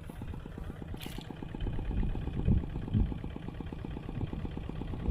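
Engine of a walk-behind hand tractor ploughing the rice paddy, running steadily with a fast, even beat.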